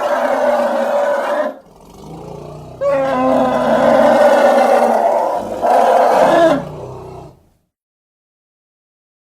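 Triceratops creature roar sound effects: a roar that breaks off about a second and a half in, then a lower, quieter growl, then a long loud roar followed closely by a shorter one that fades out.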